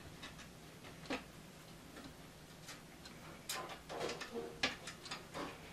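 Small clicks and knocks of a bolt and metal seat hardware being handled and fitted by hand into a theater seat. They come scattered at first, then more thickly in the second half.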